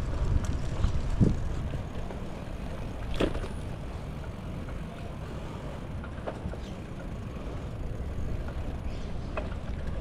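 Outdoor ambience: a steady low rumble with a few faint clicks, and one sharper click about three seconds in.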